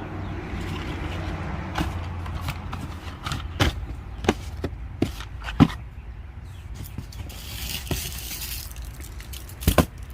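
Cardboard firework boxes being handled and set down: scattered light knocks and scrapes, with a brief rustling hiss about eight seconds in, over a steady low hum.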